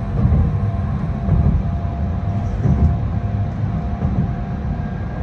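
Shinkansen Kodama bullet train running, heard from inside the passenger car: a steady low rumble with a thin steady whine above it.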